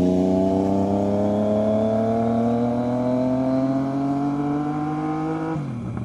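Motorcycle engine accelerating, its pitch rising slowly and steadily, then falling away quickly a little before the end as the throttle closes.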